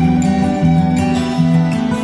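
Background music with a plucked acoustic guitar playing a gentle melody.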